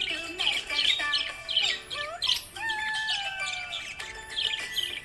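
Budgerigars chattering, a rapid, continuous jumble of short chirps, squawks and whistled rising and falling notes typical of contented budgies.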